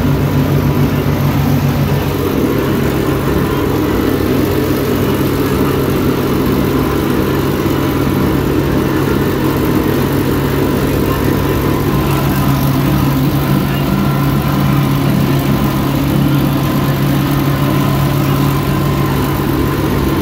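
UTB 445 DT tractor's diesel engine running steadily under load, heard from inside the cab, as it drives a rear mulcher chopping corn stalks. The engine note dips slightly about two seconds in and again about twelve seconds in.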